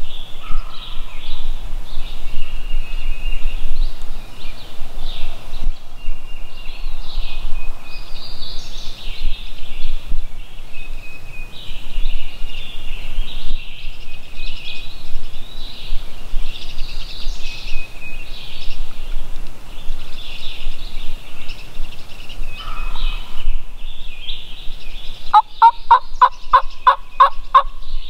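Wild turkey calling over a steady chorus of chirping songbirds, with a few short distant turkey calls. Near the end comes a loud run of about ten raspy turkey yelps, roughly four a second.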